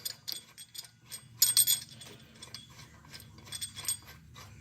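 Hand ratchet clicking and metal parts clinking as the idler pulley's bolt is backed out and the pulley comes off, with a louder metallic clatter about one and a half seconds in.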